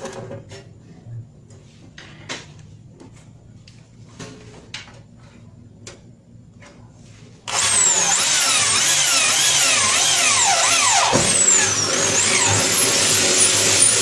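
Light scattered clicks and taps. About seven and a half seconds in, a power drill starts suddenly and runs loudly, its motor pitch repeatedly rising and falling.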